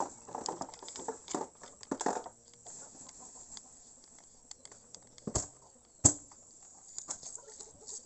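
A run of light, irregular clicks and taps, then two sharp knocks about five and a half and six seconds in, the second one the loudest.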